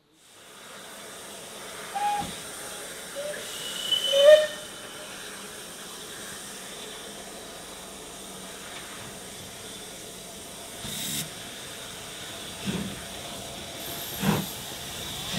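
Double-headed steam locomotives, including Bulleid Merchant Navy 35006, starting a train with cylinder drain cocks hissing steadily. A few short whistle notes come between about two and four seconds in. Slow, widely spaced exhaust beats follow in the second half as the train gets under way.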